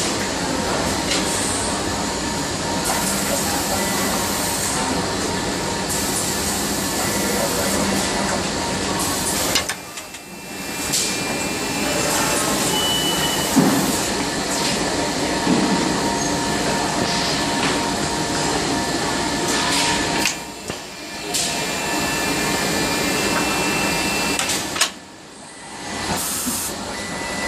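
Automated screw-locking and soldering production line running: a steady machinery din with faint steady whines, which drops away briefly three times.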